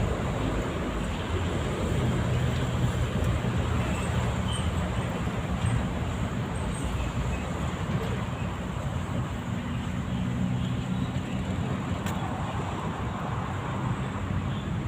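Steady low rumble of road traffic, with the engine hum of passing vehicles swelling and fading twice.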